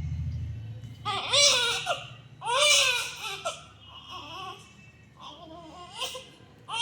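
Newborn baby crying in short separate wails, each rising then falling in pitch: two loud cries about a second in and at about two and a half seconds, then softer broken whimpering.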